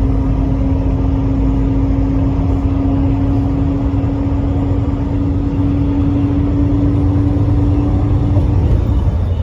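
Steady road and engine noise inside a moving car: a low rumble with a steady hum that stops near the end.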